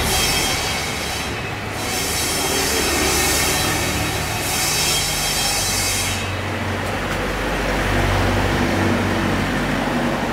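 Street traffic: a steady low engine rumble, with a shrill squealing whine that comes and goes in stretches of a second or two during the first six seconds and then stops.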